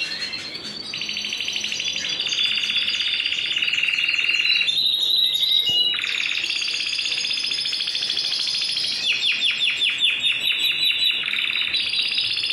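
Timbrado Español canary singing a continuous song of clear high notes and rolling trills, with a short break about five seconds in and rapidly repeated rolled notes from about nine seconds.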